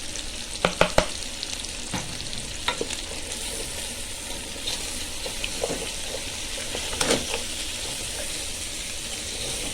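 Pigeon pieces and onions sizzling as they fry in a pot, stirred with a utensil that knocks and scrapes against the pot; three sharp knocks come about a second in, with a few more later.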